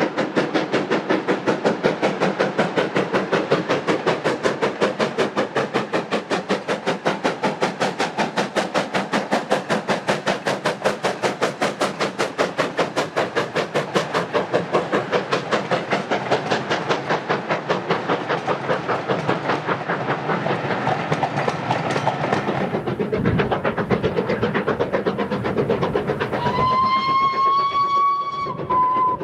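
LNER Thompson B1 class 4-6-0 steam locomotive working a passenger train, its two-cylinder exhaust beating rapidly and evenly. Near the end the whistle sounds one long blast.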